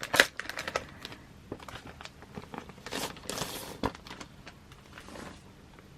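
Plastic sleeve being torn and crinkled off a CD album: scattered crackles and rustles, with a longer tearing rustle about three seconds in.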